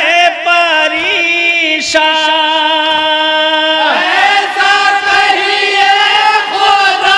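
Men chanting a noha, an Urdu mourning lament, into microphones. One voice holds a long steady note, then about four seconds in several voices come in together.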